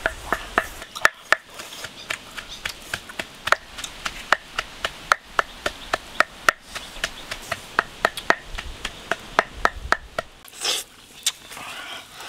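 Wooden pestle pounding dried red chilies in a clay mortar: sharp knocks about two to three a second, each with a short ring from the pot.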